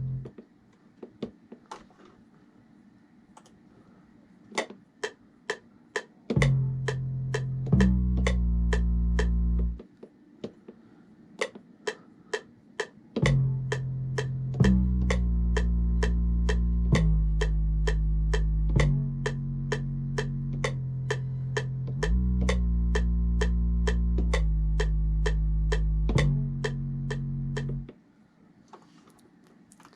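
A trap beat playing back from a Maschine Mk3 sampler: a steady run of hi-hat ticks, joined about six seconds in by deep held 808 bass notes with a plucked melody above them. The bass drops out near ten seconds, returns around thirteen seconds stepping through changing pitches, and stops near the end.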